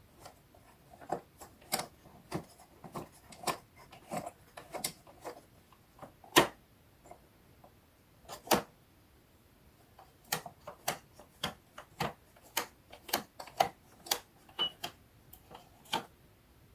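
A hand-turned 10-tooth cogwheel on a rubber-band-tensioned detent mechanism gives a run of sharp clicks, a few per second at irregular spacing, as it snaps from one position to the next. The loudest click comes about six seconds in, and there is a pause of a few seconds in the middle.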